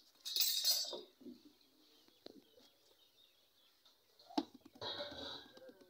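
Iron tandoor rods scraping and clinking against the oven: a short scrape just after the start, then a sharp clink a little past four seconds followed by another brief scrape.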